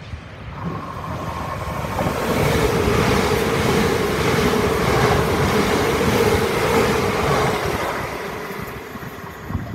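Great Northern Class 387 electric multiple unit passing through the station without stopping. The rush of wheels and air builds as it approaches, stays loud with a steady whine for several seconds as it goes by, and fades near the end as it runs away.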